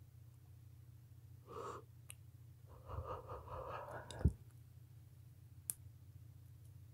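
A woman yawning: a short breath, then a longer breathy yawn of about a second and a half that ends in a sharp click, followed a little later by a faint tick.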